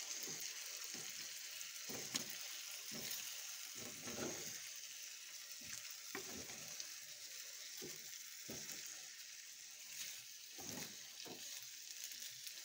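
Pelmeni sizzling in a frying pan as a splash of water boils off in the butter, with a steady hiss. A wooden spatula stirs and scrapes them in short knocks every second or so.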